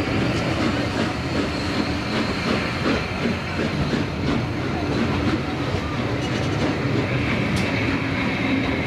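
Heritage-railway passenger coaches rolling past along a platform, their wheels clattering over the rail joints in a steady run of rail noise.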